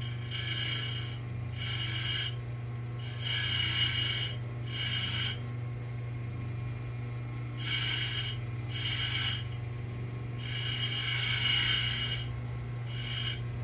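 Simington 451c chain grinder's motor humming steadily while its spinning grinding wheel is dressed: about eight gritty, hissing grinding passes, each from under a second to about two seconds long, as the dressing tool is pressed against the wheel.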